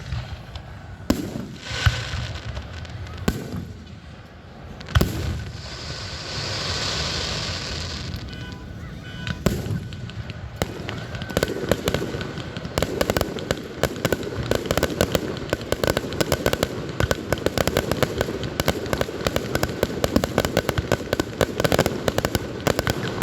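Fireworks display: several single booming shell bursts, one of them followed by a few seconds of crackling hiss. From about halfway through, a dense, continuous barrage of rapid pops and bangs.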